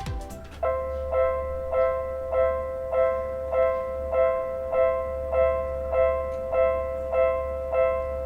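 Japanese railway level-crossing alarm starting about half a second in, then ringing steadily as an electronic two-tone ding about every 0.6 seconds: the warning that a train is approaching and the crossing is closing.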